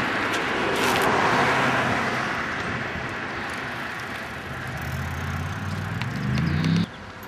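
A car engine running over a steady rushing noise, its pitch rising near the end. The sound cuts off abruptly shortly before the end.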